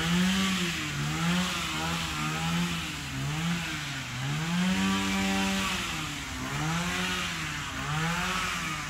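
A small engine running and revving up and down over and over, its pitch rising and falling in repeated swells.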